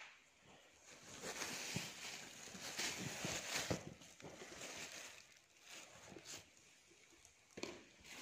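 Rustling and soft knocks of clothes, plastic bags and a cardboard box being rummaged through by hand. The rustling is louder in the first half.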